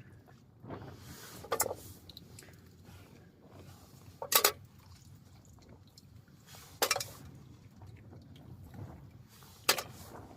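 Cookware being handled during cooking: four short clattering knocks a few seconds apart, over a low background rumble.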